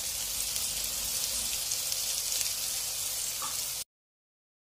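Beancurd (tofu) strips frying in oil in a wok: a steady, high sizzling hiss that cuts off suddenly near the end.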